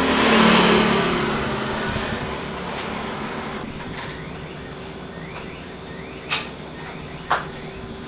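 Motorcycle engine breathing through a pod-style max-airflow air filter on its 28 mm carburettor, with the intake sounding like an open carb: a throttle blip swells and falls away over the first two seconds, then the engine idles steadily. Two sharp clicks about a second apart near the end.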